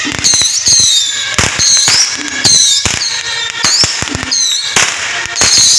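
Firecrackers going off in loud, irregular bangs, a couple to several a second, with shrill high swoops between the bangs.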